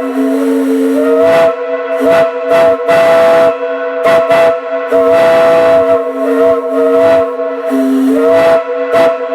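An 11 lb bronze Powell three-chime, single-bell steam whistle blowing one long, loud chord of three steady tones, with repeated bursts of hissing through it. The chord sags and slides back up in pitch about a second in and again near the end.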